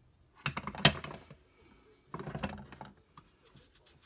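Old cast-iron G clamps being handled, metal rattling and clicking against metal and glass in two bursts. Near the end quick, rapid rubbing strokes start, a few to the second.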